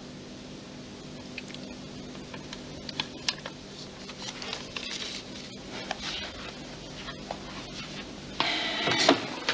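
Soft scattered clicks and paper handling over a low steady hum. Near the end, a sudden run of crockery and cutlery clinking.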